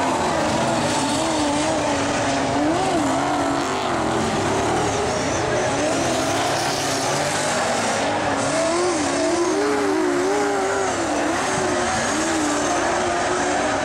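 Several speedway saloon cars racing on a dirt oval, their engines rising and falling in pitch as they accelerate down the straights and lift through the turns.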